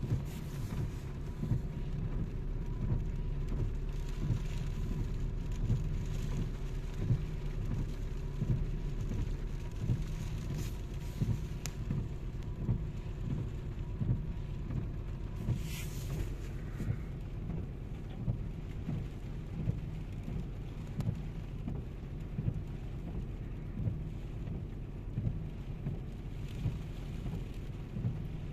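Heavy rain drumming on a car's roof and windscreen, heard from inside the car, over a low steady rumble.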